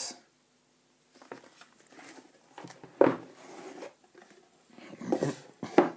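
Keyboard box and its packaging being handled: irregular rustles and light knocks, with a sharper knock about three seconds in and several more near the end.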